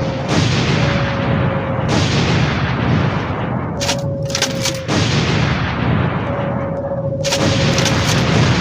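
Bomb explosion sound effects: several blasts a second or two apart, each fading into a low rumble, with sharp cracks among them and a thin whistling tone held between some of the blasts.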